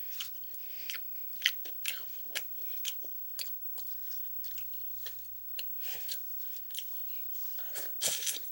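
A person chewing and biting food close to the microphone: wet, crunchy mouth sounds in a string of irregular sharp clicks and smacks, a few a second, getting louder and busier near the end.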